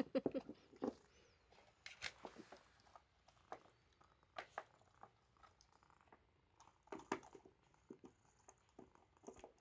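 Small dog gnawing on a chew, faint irregular crunching and clicking of teeth on the chew.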